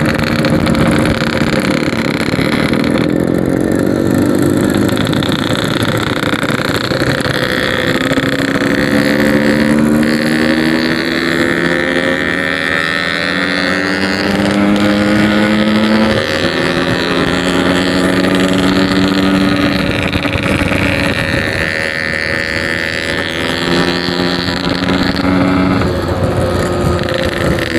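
Yamaha RX-King 135cc two-stroke single-cylinder motorcycle with a 'packing power' exhaust, being ridden hard: the engine note climbs steadily in each gear and drops back at each upshift, about five times.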